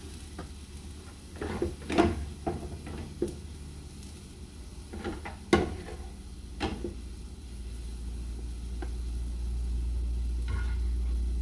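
A serving spoon scraping and knocking against a frying pan and a plate as scrambled eggs are dished out: a handful of sharp clacks, the loudest about two seconds and five and a half seconds in. A steady low rumble rises in the second half.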